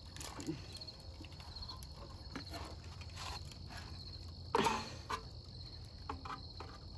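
Scattered clicks and knocks of hand tools and TV parts being handled during disassembly, the loudest a single knock a little past halfway. Crickets chirp steadily behind them.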